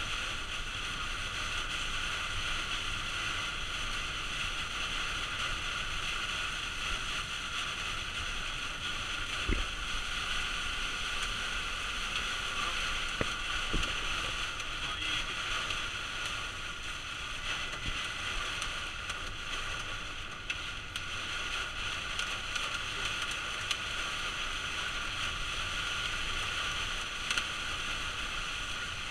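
Steady hiss of heavy rain beating on a Citroën Jumper van's windscreen and roof at motorway speed, mixed with tyre spray from the flooded road, heard from inside the cab. A few soft knocks sound around the middle.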